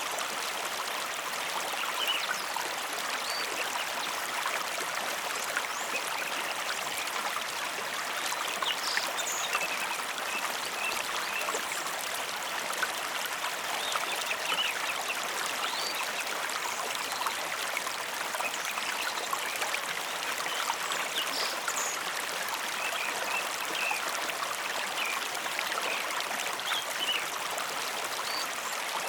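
Mountain river running: a steady, even rush of flowing water.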